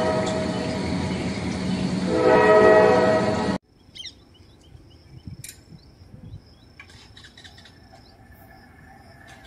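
A loud, sustained train-horn-like chord that fades and sounds again about two seconds in, then cuts off suddenly at about three and a half seconds. It gives way to quiet outdoor ambience with scattered high chirps and clicks, and a faint low hum building near the end as a distant electric locomotive approaches.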